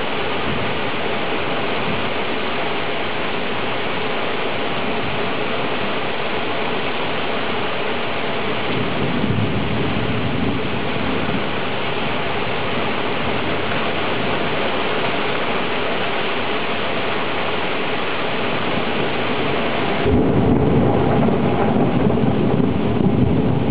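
Thunderstorm: steady rain hiss with thunder rumbling, a low rumble swelling about nine seconds in and a louder, deeper rumble setting in suddenly near the end.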